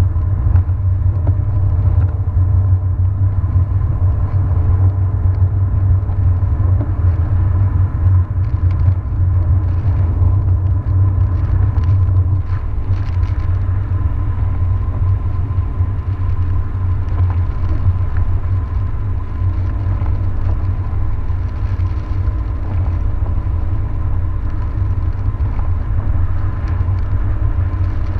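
Steady low rumble of a car's engine and tyres heard from inside the cabin while driving on a wet road, with a faint steady whine above it.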